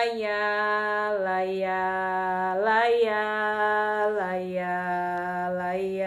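A woman singing a cappella: one unbroken line of long held vowel notes with no words, stepping down and up in pitch every second or so.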